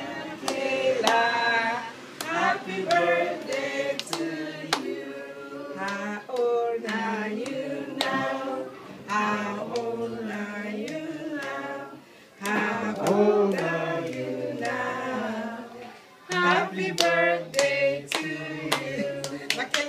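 A group singing a birthday song together, with hands clapping along. The singing breaks off briefly about twelve and sixteen seconds in.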